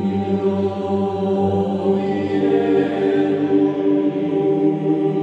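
Background music of monks' chant: a choir of voices singing long held notes in slow, plainchant style, with the harmony shifting about two seconds in.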